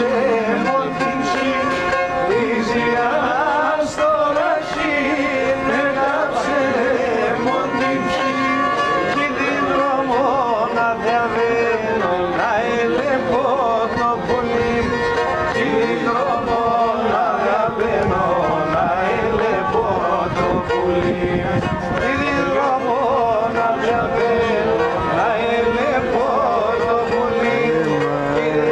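Pontic lyra (kemenche) bowed in a lively, continuous, heavily ornamented melody over a steady drone note.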